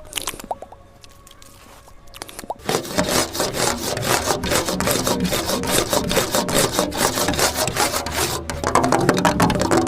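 ASMR trigger sounds: a few light taps, then about two and a half seconds in a fast, continuous scratching and rubbing, as on a rough wooden surface, that runs on to the end.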